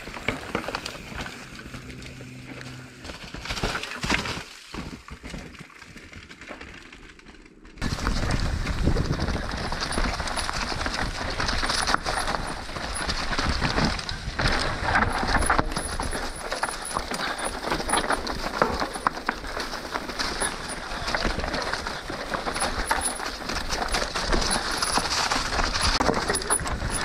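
Trek Slash mountain bike riding down a rough dirt trail: tyres rolling over the ground with rattling and clattering from the bike, and wind noise on the mic. The sound jumps suddenly much louder about eight seconds in and stays loud.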